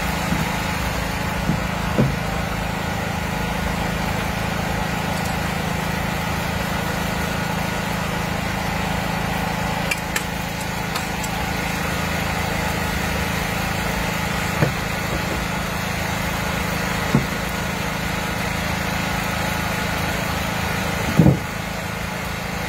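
A small engine running steadily, with several short sharp knocks and clicks scattered over it.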